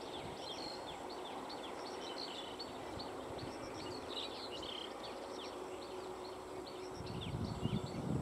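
Birds calling steadily, a dense run of short, high, downward-slurred chirps several times a second. About seven seconds in, the low rhythmic clatter of an approaching EMU train's wheels begins to rise beneath them.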